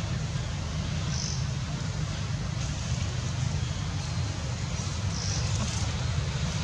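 Steady low outdoor rumble, with a faint high chirp twice.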